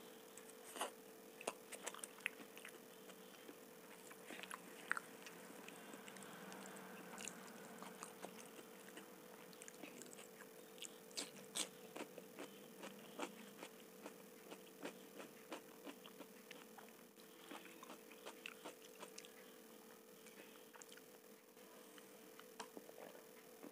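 Close-miked chewing of soft masala khichdi eaten by hand, with scattered lip smacks and mouth clicks, all faint over a steady low hum.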